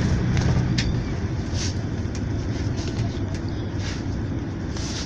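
Cabin noise inside a GAZelle Next minibus on the move: low engine hum and road rumble with scattered rattles and clicks. The steady engine hum drops away about a second in.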